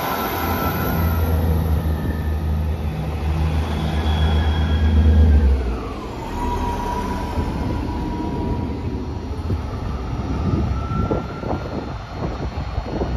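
Northern Class 158 diesel multiple unit moving past at close range, its underfloor diesel engine droning loudly until the drone drops away suddenly about six seconds in. As the drone falls away, a high whine slides down in pitch and holds steady for a few seconds over the rumble of the train.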